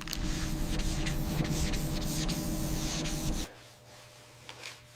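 Wet sanding a car body panel: a steady rubbing noise that stops abruptly about three and a half seconds in.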